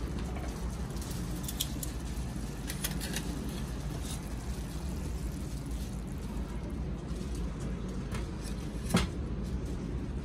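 Thai basil chicken simmering in a camping pot over an alcohol stove, scattered small pops and ticks over a steady low rumble. The pot is lifted off and set down with a single knock about nine seconds in.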